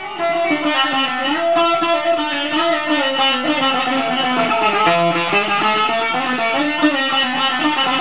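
Bouzouki played with a pick: a quick melody of plucked, bright metal-string notes, the pitch changing several times a second.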